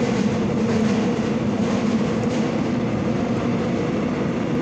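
Seoul Subway Line 6 train running, heard from inside the passenger car: a steady rumble with a low hum.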